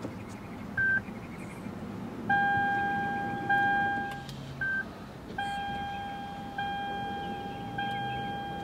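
Lexus CT200h dashboard chimes as the hybrid system is powered up with the push-button start: a short beep about a second in, then a ringing chime tone that repeats about every 1.2 s, with another short beep near the middle.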